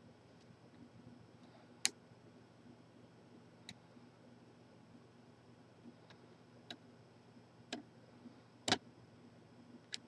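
Irregular sharp metallic clicks of a padlock being worked with picks, about seven of them, the loudest near the end, over a faint steady low hum.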